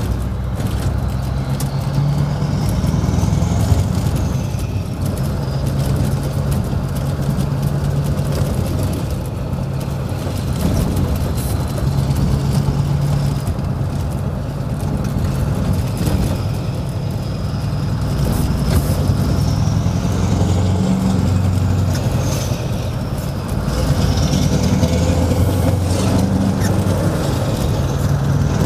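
Scania 164L's V8 engine with a valved, open exhaust, heard from inside the cab while driving: a deep, steady engine note that shifts in pitch as the truck pulls and eases off. A high whistle rises and falls a few times over it.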